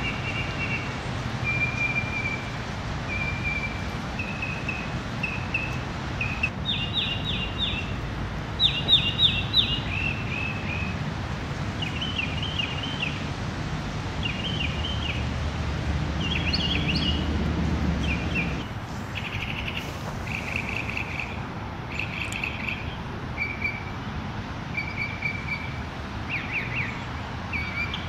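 Northern mockingbird singing: short chirpy phrases, each repeated several times before switching to the next, over a steady hiss of rain. A low rumble rises for a few seconds in the middle.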